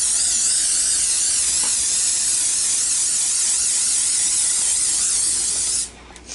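Aerosol can of nonstick cooking spray hissing in one long continuous spray as a round metal cake pan is greased to keep it from sticking; the spray cuts off near the end.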